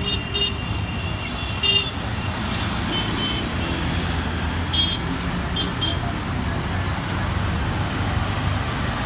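Busy city road traffic: a steady rumble of passing engines and tyres, with short horn honks several times in the first six seconds.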